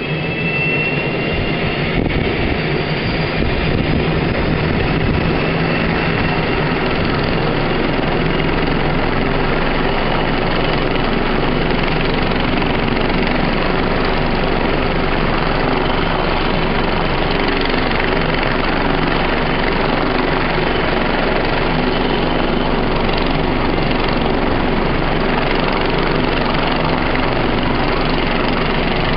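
Bell 430 helicopter running on the ground, its twin turboshaft engines and turning main rotor making a steady, loud rush of noise.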